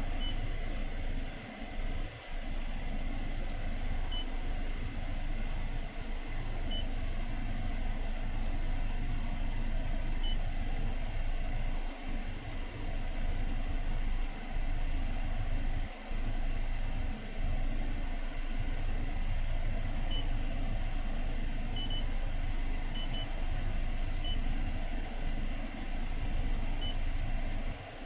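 Steady low rumble of a car cabin, with a dozen short, faint high beeps at irregular intervals.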